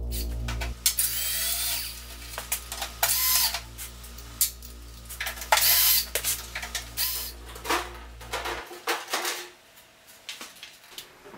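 DeWalt cordless drill backing the screws out of an oscilloscope's side cover panel, in several short whining runs with clicks between them. A low droning music bed runs underneath and stops shortly after the drilling ends, leaving a few quieter clicks and clatter as the metal cover comes off.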